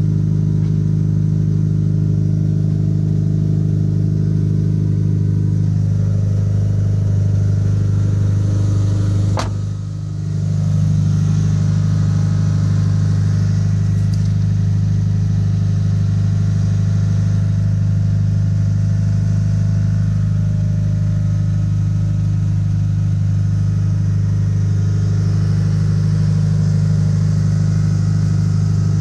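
Mitsubishi Lancer Evolution IV's 415 bhp Evo VIII MR 4G63 turbocharged inline-four idling steadily. There is one sharp click with a brief drop in level about nine and a half seconds in.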